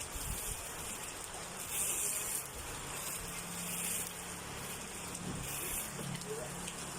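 Battery-powered grass cutter running, with a hissing rush that swells about every two seconds, and a low steady hum from about three seconds in.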